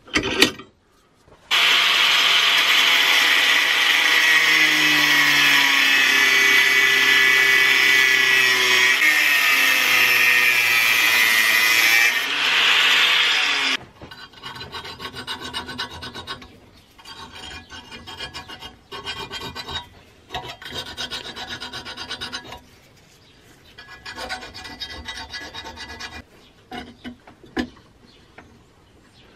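A sharp knock, then a power tool works steadily on metal for about twelve seconds and stops abruptly. After that, a small hand file scrapes in short separate strokes across a steel rivet head on a rusty cleaver clamped in a vise.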